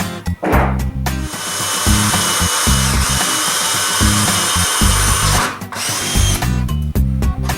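A power drill running steadily for about four seconds, dipping briefly partway through, then a short second run that winds down. Background music with a plucked bass and guitar plays throughout.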